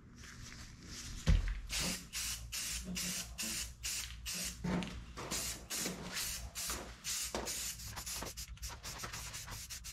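Aerosol spray-paint can spraying in many short, rapid hissing bursts, with a single low thump about a second in.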